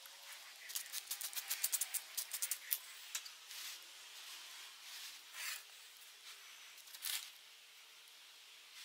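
A quick run of small sharp clicks and rattles, then a few scattered clicks and two short hissing bursts: hand work on a metal RC boat propeller.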